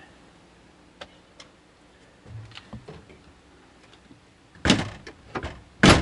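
Scattered light clicks and a soft knock as the camper's overhead lights are switched off, then two louder sharp knocks near the end, about a second apart.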